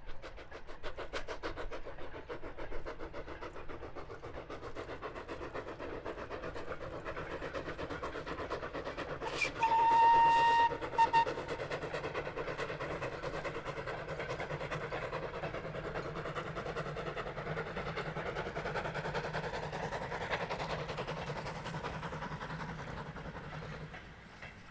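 Lancashire & Yorkshire Railway Class 21 'Pug' 0-4-0 saddle tank steam locomotive working past with a short goods train, its exhaust beats coming fast and even. About ten seconds in comes a long whistle blast followed by a short one, the loudest sounds. The sound fades away near the end.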